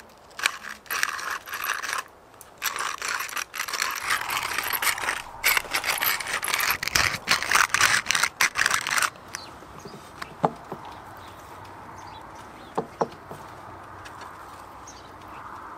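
Small wooden hand spice mill grinding, a rasping, ratcheting grind in quick uneven bursts for about nine seconds, then stopping. A few light clicks follow.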